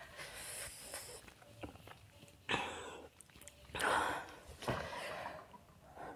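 A woman breathing hard through her open mouth: about four harsh, hissing breaths and gasps, the loudest about two-thirds of the way through. It is her reaction to a burning mouth and throat after eating an extremely spicy chip.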